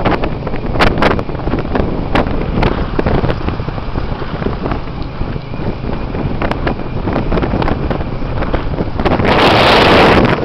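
Wind buffeting the microphone over the running engine of a moving motorbike-drawn tuk-tuk, with a louder rush of wind near the end.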